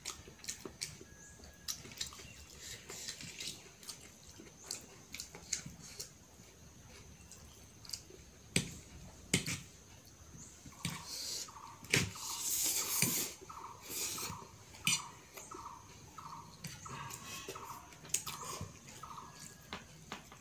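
Someone eating instant noodles and boiled egg with a metal spoon from a ceramic plate: the spoon clinks and scrapes on the plate again and again, with chewing and a long slurp of noodles about twelve seconds in.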